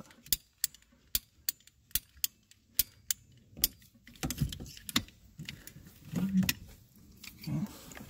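Hand cutters cutting through a 3/4-inch rubber coolant hose: a string of sharp clicks, about two a second, for the first half. Softer knocks and handling noises follow.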